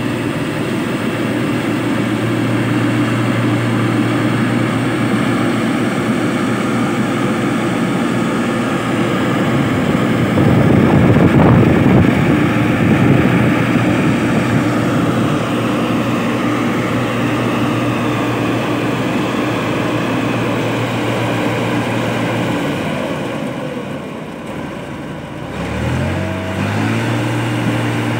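New Holland 8070 combine harvester's diesel engine running steadily under load in a rice paddy, louder about ten to thirteen seconds in. Near the end the engine note sags and then revs back up, rising in pitch to its steady running speed.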